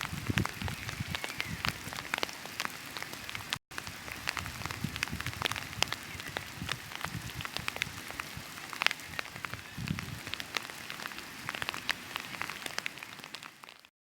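Heavy rain pelting down: a dense hiss full of sharp drop strikes, with low rumbling gusts of strong wind on the microphone at the start and again about ten seconds in. It cuts out for an instant near four seconds and stops abruptly just before the end.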